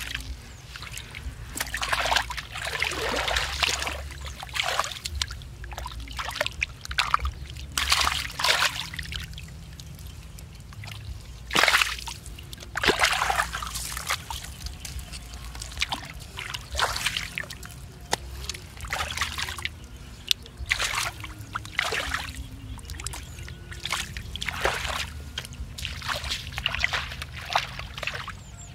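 Shallow muddy water sloshing and splashing as hands grope and scoop through it, in irregular splashes with one louder splash about twelve seconds in.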